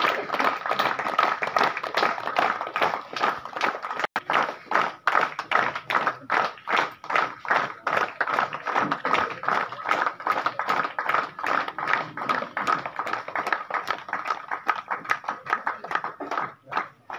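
A group of people clapping their hands, many quick claps a second, with a brief break about four seconds in.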